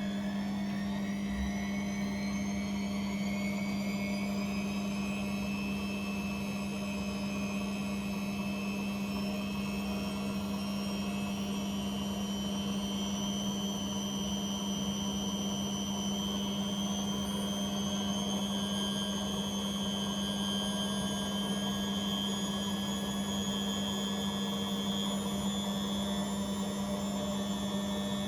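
An appliance motor running up to speed: a whine that rises in pitch over the first several seconds, then holds steady, over a constant low hum.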